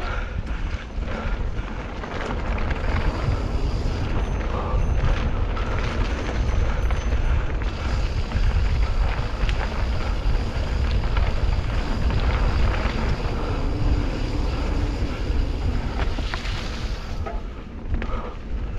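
Steady wind rumble on a mountain biker's camera microphone while riding downhill singletrack, with scattered knocks and rattles from the bike and tyres over the dirt trail.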